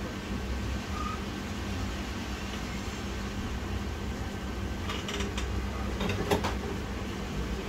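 A steady low electrical hum, with a few light clicks and taps between about five and six and a half seconds in, the sharpest a little after six seconds.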